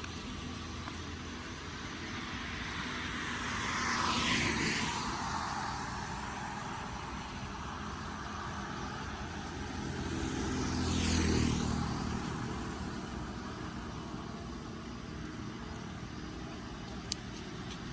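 Two vehicles pass by, one about four seconds in and one about eleven seconds in; each swells and fades with a falling pitch, over a steady background wash of noise. There is a single sharp click near the end.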